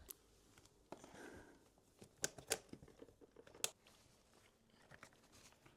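Faint handling noises: a brief rustle about a second in, then three sharp clicks or knocks, with a few softer ticks after.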